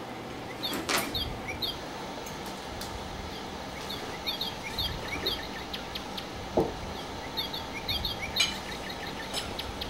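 Small birds chirping in short repeated calls over a steady background hiss, with a few sharp clicks and one knock.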